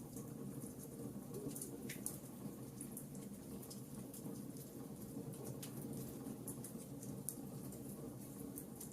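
Wood fire crackling in a fireplace: many small, irregular snaps and pops over a steady low background of burning.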